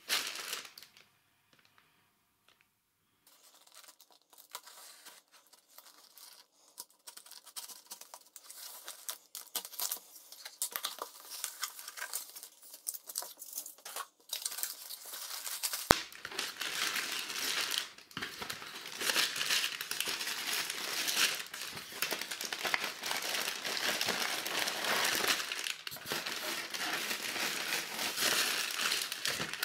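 Plastic wrapping and packing tape on a cardboard parcel crinkling and tearing as it is opened by hand, then plastic bags of building-block parts rustling. The sound is sparse and patchy at first and becomes dense and continuous about halfway, where there is one sharp click.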